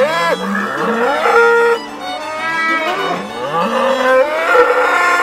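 Young black cattle mooing several times, long calls that rise and fall in pitch, with fiddle music underneath.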